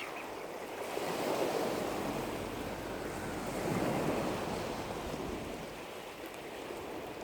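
Rushing noise of wind and small lake waves, swelling about a second in and again around four seconds.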